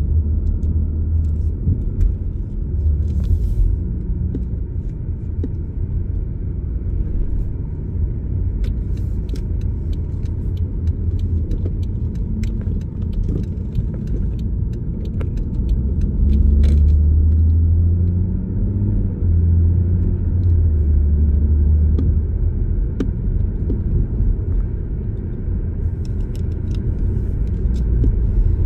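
BMW 440's engine running and revved under light throttle, heard as a steady low rumble from the driver's footwell, with several louder swells, the strongest around the middle.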